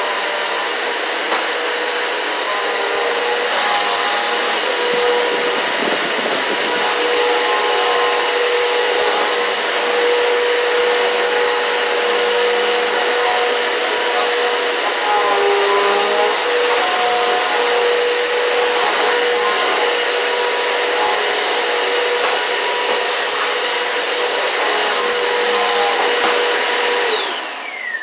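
Eureka PowerSpeed upright vacuum cleaner running steadily with a high whine, a few brief sharp sounds mixed in. Near the end it is switched off and the motor winds down in a falling whine.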